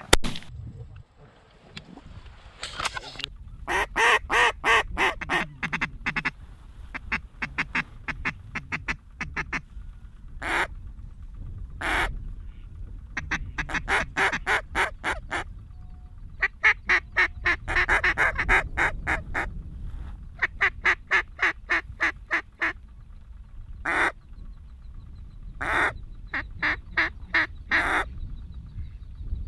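Mallard duck calls blown in quick runs of quacks, about five a second, with single loud quacks between the runs.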